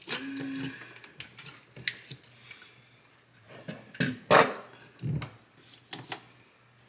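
Scattered clicks and knocks from the parts of a Ninja Creami Breeze ice cream maker being handled during setup, the loudest a sharp knock about four seconds in.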